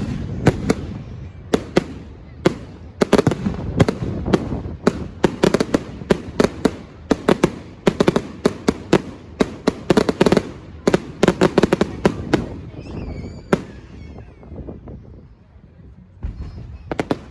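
Fireworks display: rapid, dense bangs and cracks of exploding shells for about thirteen seconds, then the barrage thins out, with two or three more bangs near the end.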